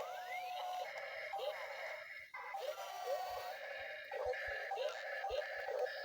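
Background music with short swooping, whistle-like sound effects and a few soft low thumps.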